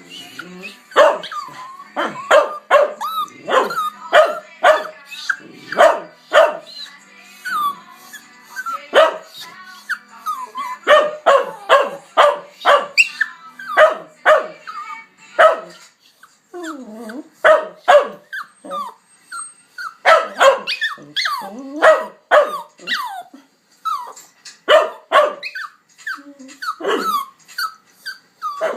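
Pet dog barking over and over in quick short yaps, with a few whines in between. She is impatient for her owner to come in from outside.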